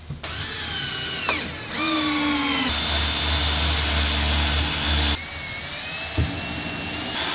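Electric drill boring into wood. Its motor whine dips and climbs back up in pitch, holds steady for a few seconds, then eases to a lower, slowly rising tone as the bit cuts and clears chips.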